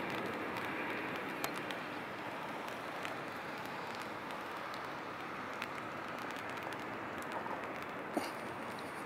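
Steady distant jet-engine noise of a Boeing 777 rolling out after landing, easing off slightly, with a few faint ticks scattered through it.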